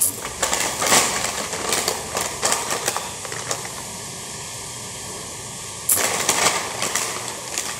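Plastic potato-chip packet crinkling as it is handled and turned over, in two spells of crackling with a quiet pause in the middle, over a steady background hiss.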